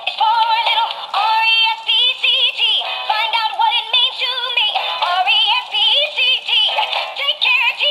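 Animated plush frog toy playing its song through its small built-in speaker: a high-pitched sung melody with a quick wavering vibrato, thin and without any bass.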